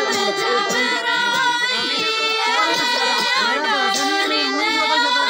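A Gojri wedding doli song sung by several voices, including children's, over a harmonium holding steady notes.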